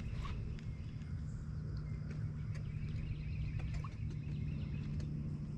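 Outdoor ambience: a steady low hum with faint, scattered short chirps and clicks, birds calling.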